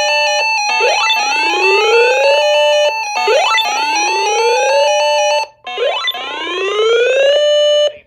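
Synthesized emergency-alert attention tone: an electronic whoop that rises in pitch, repeated three times about every two and a half seconds over a steady electronic tone. It cuts off abruptly near the end.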